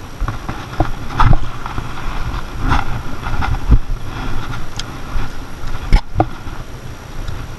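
Uneven rumbling noise on the microphone with scattered light clicks and knocks, and one sharper knock about six seconds in.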